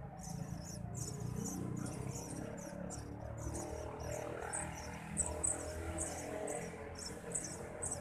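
Eurasian tree sparrow nestlings begging with rapid, high, thin squeaking chirps as the parent feeds them at the nest.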